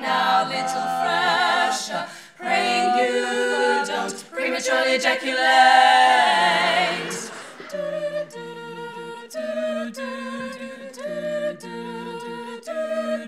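Female a cappella vocal group singing wordless close harmony: sustained chords with vibrato that swell to a loud peak about six seconds in, then short, detached chords repeated about two a second.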